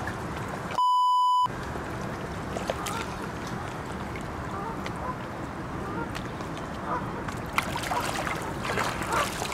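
An edited-in bleep, one steady tone about half a second long, about a second in. Behind it runs a steady wash of wind and water with geese honking now and then, and hands splash in the water near the end as a carp is released.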